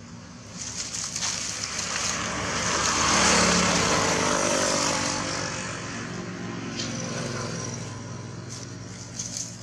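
A motor vehicle's engine passing by, building to its loudest about three seconds in, then fading, its pitch dropping as it goes.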